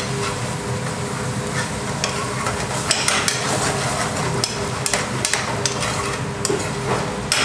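Curry sauce sizzling in a metal frying pan over a gas burner while a metal ladle stirs and scrapes around the pan, wiping the spices off its sides, with scattered clinks and knocks of the ladle against the pan.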